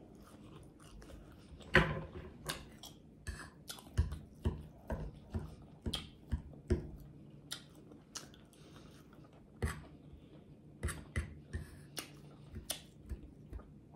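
Close-miked chewing and lip smacking of a mouthful of fried pork chop, a string of irregular sharp wet clicks and smacks, the loudest about two seconds in.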